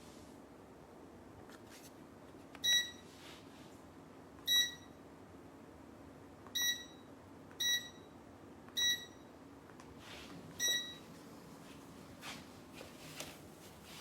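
An electronic beeper sounding six short, high beeps at uneven intervals over a faint steady hum, with a few soft clicks near the end.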